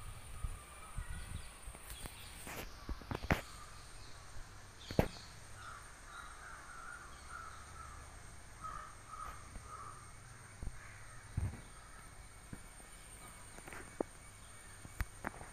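A few sharp taps and clicks, the loudest about five seconds in, over a low background rumble. In the middle, a bird calls faintly in the distance, a quick run of short calls.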